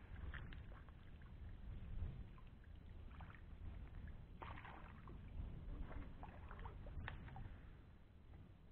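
Quiet handling sounds in a small wooden boat: a few light knocks and small water splashes as a floating ring keep net holding a freshly caught tilapia is lowered over the side, over a low steady rumble.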